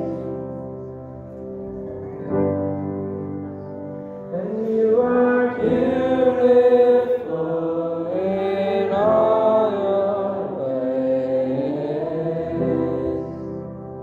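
Worship band music: piano and acoustic guitar under long held sung notes without clear words, swelling louder around the middle and easing off again.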